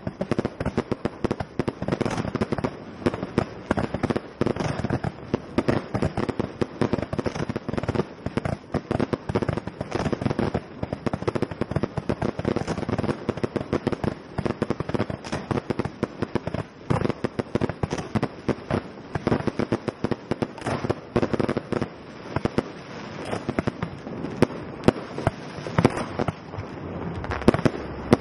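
Fireworks display: a rapid, unbroken string of many bangs a second, with no let-up.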